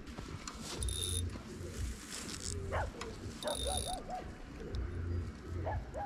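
An animal calling in short runs of repeated notes, once about 3 s in and again near the end, over a steady low rumble of wind on the microphone, with two brief rushing noises about 1 s and 3.5 s in.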